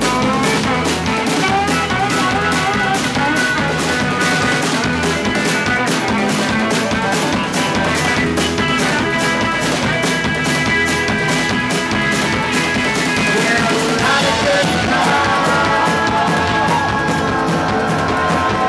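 A live rock band playing an instrumental passage. A drum kit keeps a steady beat with cymbal hits, with a hollow-body electric guitar and bass.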